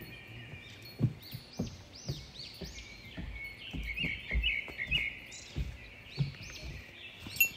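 Small birds chirping, many short rising-and-falling notes overlapping steadily. A few soft low thumps sound among them, the loudest about a second in.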